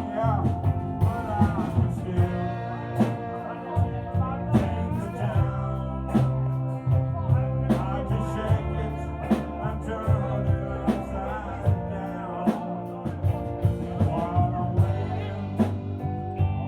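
A live band playing upbeat rock-and-roll-style music, with drums keeping a steady beat under a full low end and a lead line that slides between notes.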